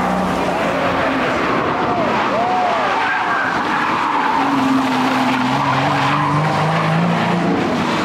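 Lotus Exige S's supercharged engine driven hard through a corner, with a few short tyre squeals about two to three seconds in, then the engine note rising as it accelerates away.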